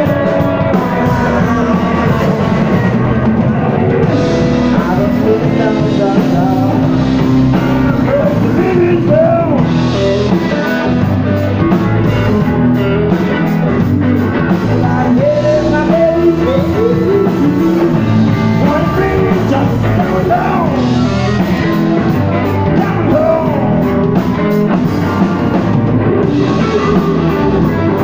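Live rock band playing loud: electric guitar, bass guitar and drum kit, with a man singing.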